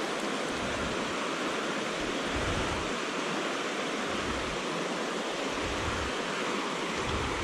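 Steady rushing noise of wind and surf, with gusts buffeting the microphone as uneven low rumbles every second or so.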